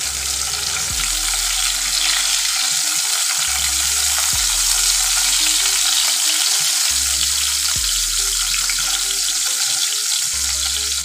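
Ari fish (catfish) steaks sizzling steadily in hot mustard oil in a non-stick pan while a silicone spatula turns them over.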